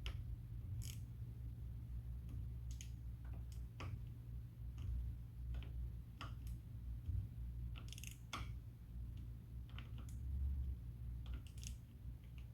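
Scattered small clicks and light metallic clinks from hand pump parts and tools being handled during reassembly, over a steady low hum.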